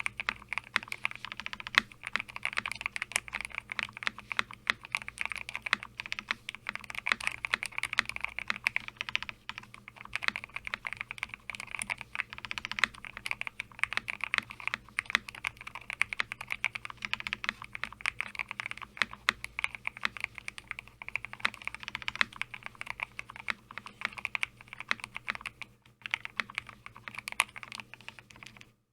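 Continuous rapid typing on a DIY mechanical keyboard built in a Lego-brick case, with hand-lubed Glorious Lynx linear switches and white keycaps: a dense run of key clacks, with a short lull near the end.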